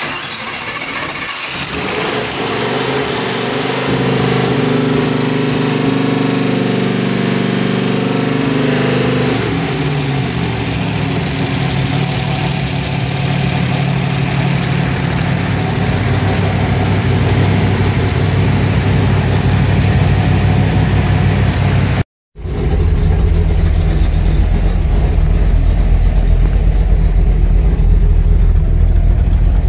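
V8 engine of a swapped Nissan Hardbody pickup starting and running, with a high pitched belt squeal over it for the first several seconds as both alternators kick on, fading out after about nine seconds. The sound breaks off briefly about two-thirds of the way through and comes back as a deeper, heavier engine rumble.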